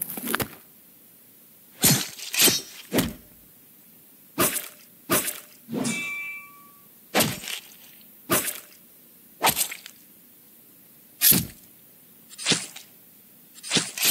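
Cartoon fight sound effects: a series of sharp hits and thwacks, roughly one a second, with quiet gaps between them. About six seconds in, one hit carries a short metallic ring, like a blade clashing.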